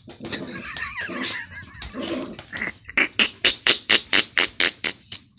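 A small terrier-type dog growling and grunting as it shakes and thrashes a toy, then a fast run of sharp, breathy puffs, about five a second.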